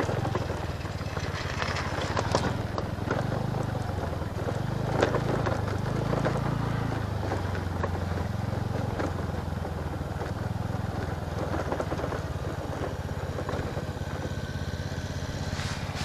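TVS NTorq scooter's single-cylinder engine running as it rides over a loose gravel road, its pitch shifting a little around the middle, with scattered clicks and crackles from the stones under the tyres.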